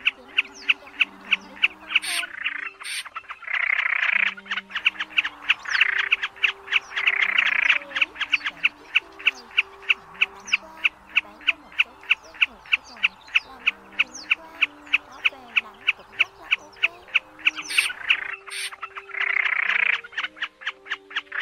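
Snipe calling: a fast, even series of sharp chipping notes, about four a second, broken several times by harsh rasping calls. Faint background music with held low notes plays underneath.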